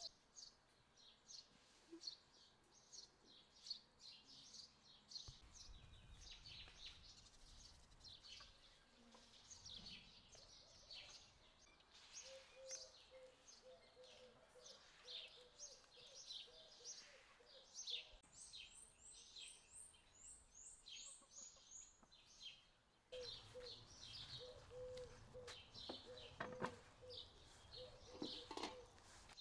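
Faint chirping and twittering of small songbirds, with a fast high trill about two-thirds of the way through and a lower repeated call near the end. A faint low rumble comes and goes.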